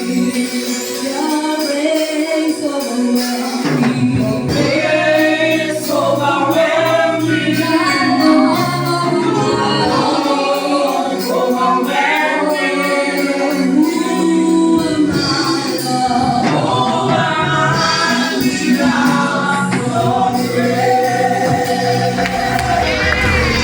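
Gospel choir singing a worship song with instrumental accompaniment; a low bass line comes in about four seconds in.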